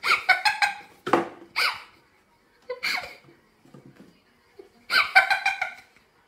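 A person laughing hard in several bouts of quick 'ha-ha-ha' pulses, with short pauses between them.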